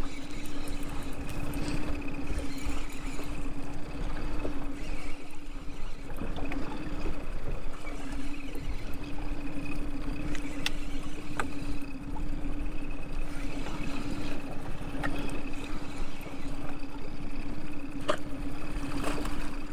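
Wind rushing over the microphone and small waves slapping a fishing boat's hull, over a steady motor hum that drops out briefly a few times. Scattered sharp clicks come from rod, reel and boat gear.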